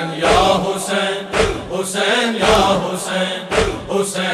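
Male voices chanting a noha lament in chorus over a steady beat of sharp hand slaps, about two a second: the rhythm of matam, mourners striking their chests.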